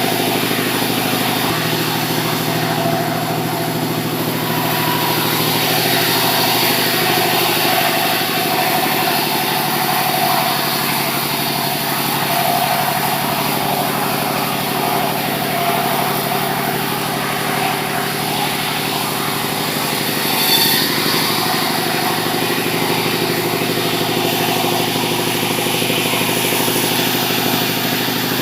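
Engine-driven sawmill running steadily, with a short sharp clack about twenty seconds in.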